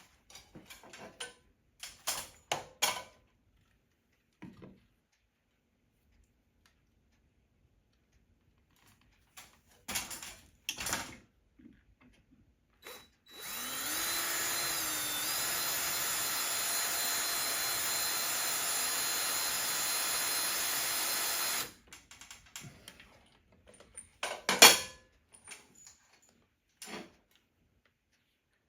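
Power drill pre-drilling a pilot hole: it spins up and runs steadily for about eight seconds, starting about 13 seconds in. Scattered knocks and clicks of handling the drill and parts come before and after it.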